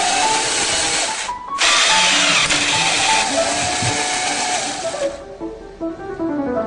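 The motor of a homemade ball-launching machine whirring loudly. It stops briefly about a second and a half in, then runs again and cuts off about five seconds in. Piano music plays underneath.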